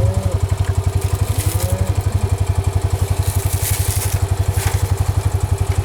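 A vehicle engine idling with a steady, rapid low pulse. A few brief rustling crunches sound over it.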